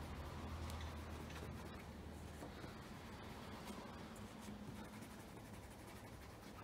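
Fingers rubbing shoe polish into the toe of a navy leather dress shoe: a faint, soft scratchy rubbing with small ticks.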